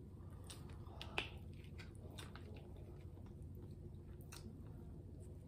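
Cooked king crab leg shell cracking and snapping as it is broken apart by hand: a few short, sharp cracks, the loudest about a second in, with soft chewing sounds between.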